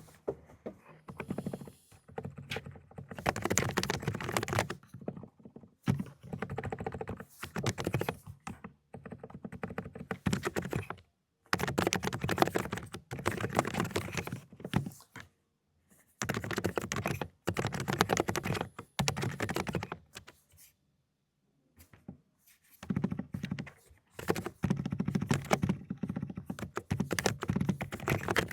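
Fast typing on an Aula ('독거미') mechanical keyboard with low-noise 'cotton candy' linear switches. The keystrokes come in quick spurts of one to three seconds, with short pauses between them and one longer pause of about two seconds a little past the two-thirds mark.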